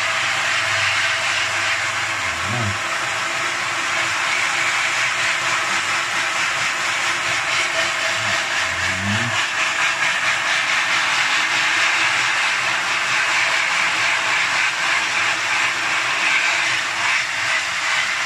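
Water from a handheld shower head spraying onto a silk-screen mesh, a steady hiss. It is the washout stage, rinsing the softened white-glue emulsion out of the stencil so the image opens up in the screen.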